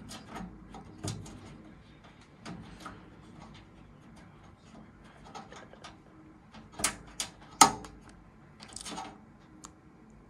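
Kitchen knife tip working a stuck screw on a desktop PC case: scattered light metal clicks and scrapes, with a couple of louder sharp clicks about seven seconds in.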